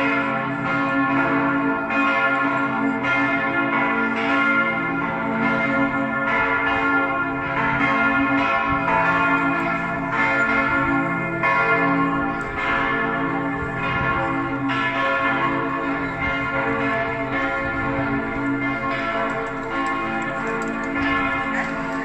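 Church bells of Matthias Church pealing: several bells struck in turn about once a second, their tones overlapping and ringing on without a break.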